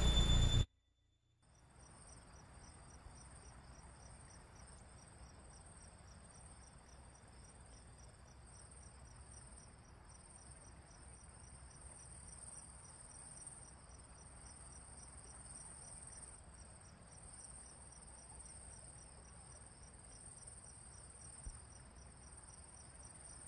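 Music cuts off under a second in; after a brief silence, crickets chirp faintly and steadily in a rapid, high, evenly pulsed trill.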